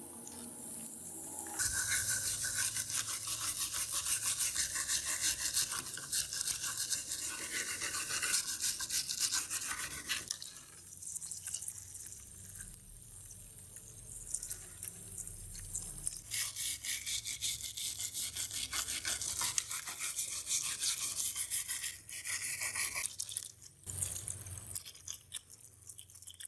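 A stiff brush scrubbing rusty steel tin snips in a wet cleaning solution, with fast back-and-forth strokes that ease off for a few seconds midway, then pick up again.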